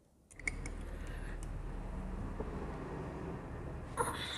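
A steady low engine rumble from a vehicle running in the background. Over it come a few light metallic clicks as a washer and nut go onto a motorcycle engine's gear shaft, and a socket wrench clinks against the nut near the end.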